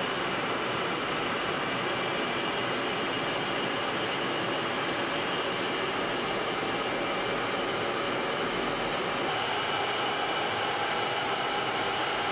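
Steady jet aircraft noise in flight: an even rushing hiss with a faint high whine.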